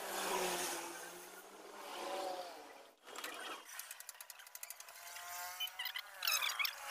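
A motor vehicle's engine passing in the background, its pitch rising and falling, then falling away near the end.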